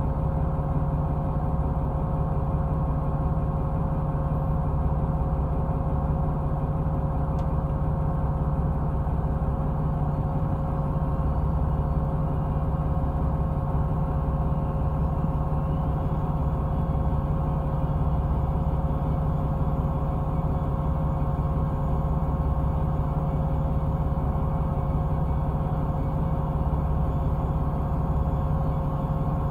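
Fishing boat's engine running steadily: a constant low hum with a steady tone over it.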